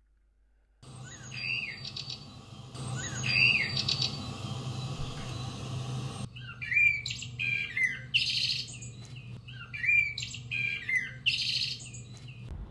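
Small birds chirping at a feeder, most likely Eurasian tree sparrows, with short chirps in groups every second or two. A low steady hum runs underneath.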